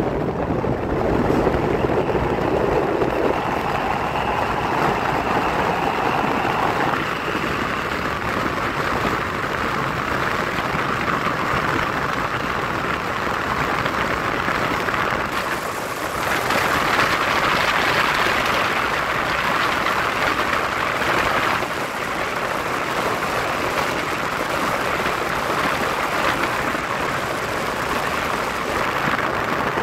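Rushing wind and rolling wheel-on-rail noise of a moving electric train heard through an open window, a steady noisy rush whose tone changes abruptly several times.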